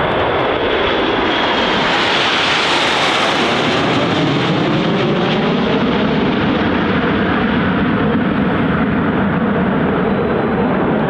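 Formation of Aermacchi MB-339 jet trainers flying past with their turbojets running. The jet noise is sharpest about three seconds in, then drops in pitch as the formation moves away.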